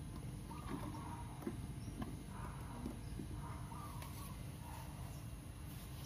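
Faint taps and clicks as a mouse circuit board is handled during desoldering of its click switch, over a low steady hum.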